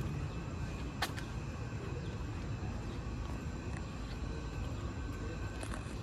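Steady low outdoor rumble with faint, high steady tones above it; a sharp click about a second in and fainter clicks near the end.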